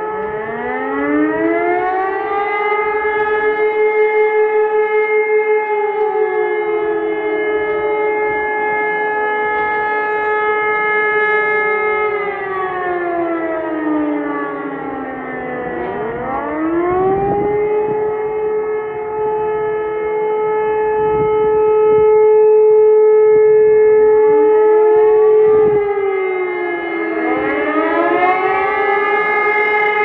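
Several civil defence sirens sounding together for a monthly siren test, each holding a steady tone at its own pitch. One by one they wind down in a falling glide and wind back up again, so the tones overlap and slide past each other; the loudest stretch comes about two-thirds of the way in.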